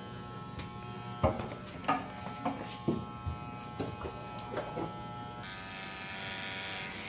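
Electric hair clippers buzzing steadily during a haircut, with a scatter of small clicks and knocks. About five and a half seconds in, the buzz turns brighter and hissier.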